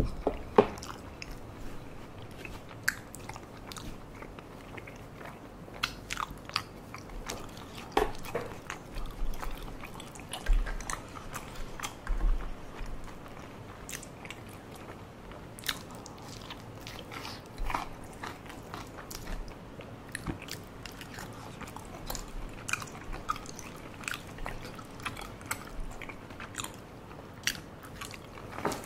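Close-miked eating of tteokbokki and fried fish cake: chewing and biting, with scattered short crunches and clicks.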